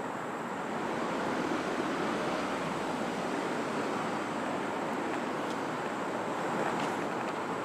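A steady rushing noise, even in level throughout, with a faint high thin whine above it and a few faint ticks near the end.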